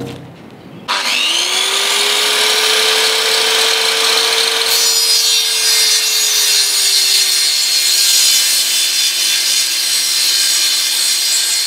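Corded circular saw starting about a second in and cutting through a timber rubbing strip, its motor running with a steady whine under load. The blade is badly blunt.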